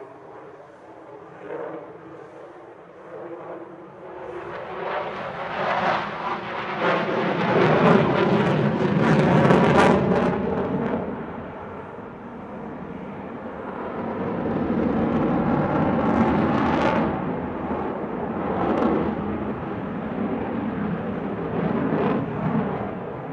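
Sukhoi Su-35 fighter's twin jet engines heard during a fly-by: the jet roar swells to a loud pass about eight to ten seconds in, eases off, then builds again and holds.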